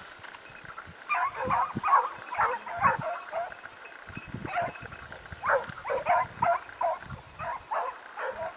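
Hunting dogs barking in quick runs of short calls as they run a rabbit, starting about a second in, with a brief pause around the middle.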